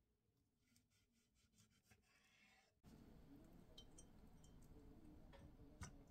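Very faint sounds of a knife slicing through a lemon on a wooden chopping board, then a few small ticks and drips as the lemon is squeezed over a glass of water and dropped in. Low background hiss steps up about three seconds in.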